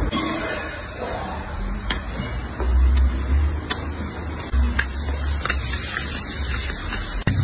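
Hand-held hoof tool scraping and clicking against a horse's hoof, with a few sharp clicks over a low rumble that swells and fades.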